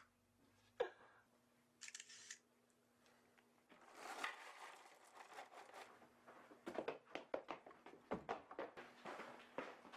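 Dry cereal poured from a box into a small bowl: a crackly rattle of many small clicks that starts about four seconds in and goes on. Before it, a single click and a short hiss about two seconds in.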